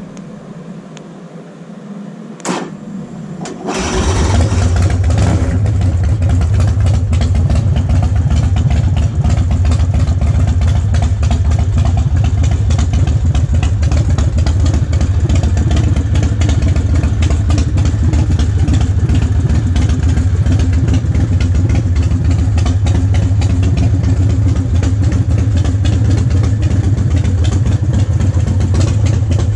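2005 Big Dog Ridgeback chopper's air-cooled V-twin started on the electric starter: a couple of clicks, then the engine fires about four seconds in and settles into a steady idle.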